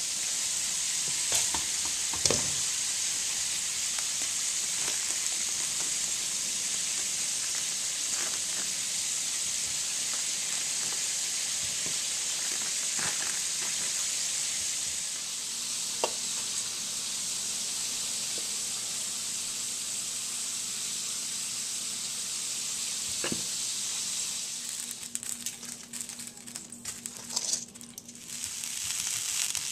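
Hot oil sizzling steadily as battered chicken wings and okra deep-fry in a wok, with a few light clicks of metal utensils. Near the end the steady sizzle breaks up into irregular crackling.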